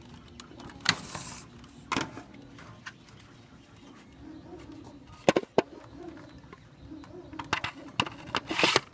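Hard plastic clicking and knocking as a Nerf Vulcan blaster and a 3D-printed rail attachment are handled: single sharp clicks about a second and two seconds in, a quick double knock past the middle, and a flurry of clicks near the end.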